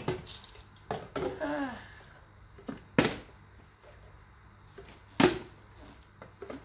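Small plastic water bottle, partly filled, thudding down on a hard tiled floor as it is flipped, four sharp hits spread over a few seconds with the one about five seconds in loudest. A boy's brief voice sound with falling pitch comes between the first two hits.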